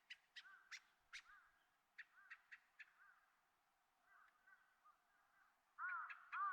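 Small birds chirping faintly: short, sharp chirps scattered through, then a quick run of louder arched chirps near the end.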